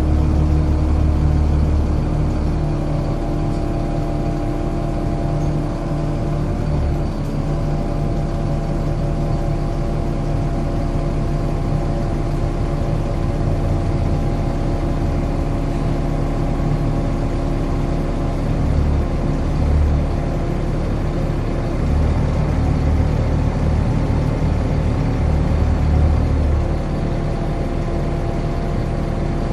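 Volvo B7LA articulated bus's diesel engine and loud cooling fan running, with a steady whir over a low rumble. A deeper drone comes and goes several times.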